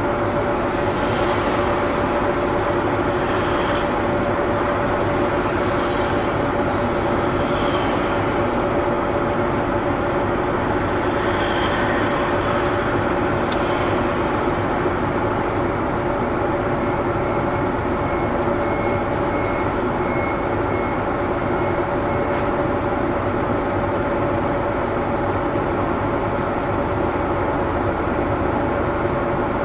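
Kyoto City Bus running, heard from inside the passenger cabin: a steady engine drone with a constant hum that holds one pitch throughout.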